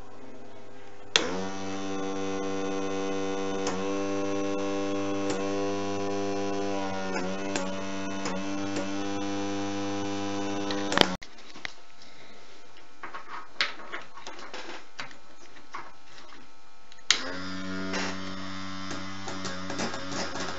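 Small electric air compressor of a fischertechnik pneumatic model running with a steady electric hum. It switches on with a click about a second in and cuts off abruptly about halfway, followed by a few scattered clicks, then starts up again near the end.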